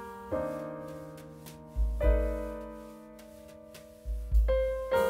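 Background piano music: slow chords, each struck and left to ring out, with deep bass notes under some of them.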